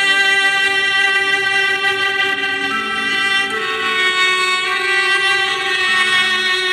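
Background music: a violin-like bowed melody of long held notes, with a change of note about halfway through.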